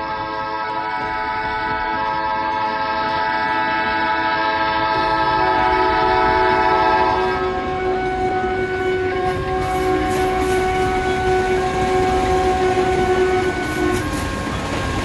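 Train horn sounding a long chord of several steady tones, the chord thinning to fewer notes about halfway, over the rising rumble and clatter of a passing train.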